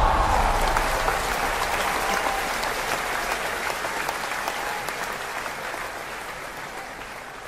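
Audience applauding at the end of a dance performance, the clapping gradually fading out.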